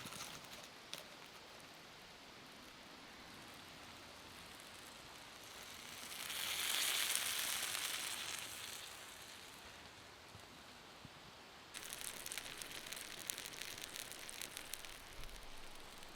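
Campfire coals crackling and hissing under a cast iron pan of apple crisp. There is a swell of hiss about six seconds in that fades by nine, and thick, fast crackling starts near twelve seconds.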